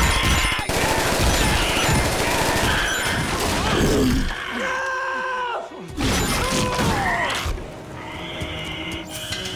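Action-film soundtrack: rapid gunfire and crashing impacts over a music score, with a long pitched dinosaur shriek about halfway through; it quiets near the end, leaving mostly music.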